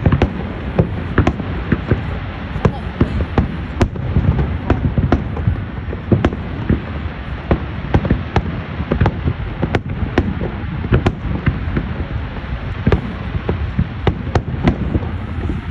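Fireworks display going off in a rapid barrage: many sharp bangs, several a second and irregularly spaced, over a continuous low rumble.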